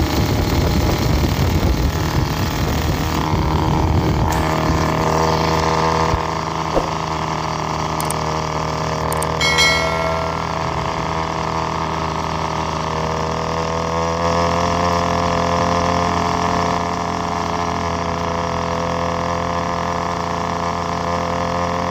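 Motorcycle engine running steadily at cruising speed, heard from a camera mounted on the moving bike, with wind rushing over the microphone for the first few seconds. About eight to ten seconds in there are a few short clicks and a brief high tone.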